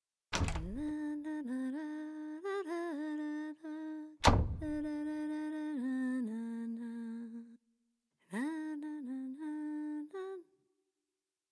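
A woman humming a tune in three phrases of held notes that step up and down, with short pauses between them.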